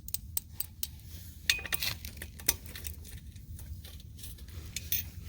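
Small metal hardware clinking and clicking irregularly as it is handled, typical of concrete anchors and bolts being sorted and tried in a drilled hole, with a few sharper clinks a couple of seconds in.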